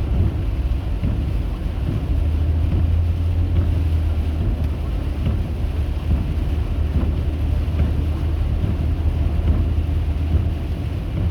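Steady low drone and rumble of a car in motion, with road and wind noise as heard from inside the cabin.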